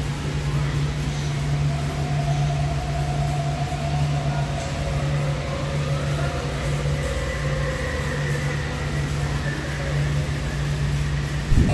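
Steady hum of the electric blower fans that keep the giant inflatable Halloween decorations inflated, with a short thump near the end.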